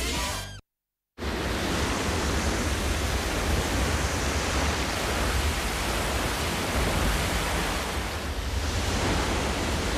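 Steady roar of heavy surf breaking, a dense even rush with a deep low rumble, starting after a brief cut to silence about a second in.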